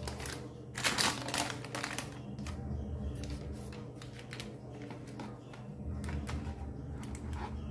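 A knife cutting down through a freshly baked brownie slab on baking paper: a quick run of crisp scrapes and clicks about a second in, then scattered lighter clicks as the blade presses through the crust and onto the paper. A steady low hum runs underneath.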